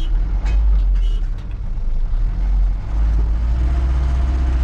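Vehicle engine running with a heavy, steady low rumble as it drives through a water-logged stretch of mountain road, with a few short knocks in the first second and a half.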